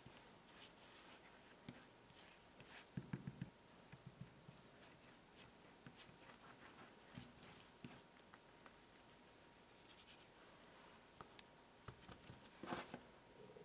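Faint scraping and light clicks of a metal spoon spreading oil across rolled-out paratha dough on a countertop. Near the end come soft pats and rustles of hands folding the dough over.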